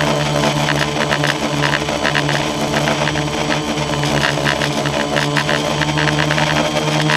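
Multirotor drone's electric motors and propellers running in flight, heard from on board as a steady, even-pitched hum.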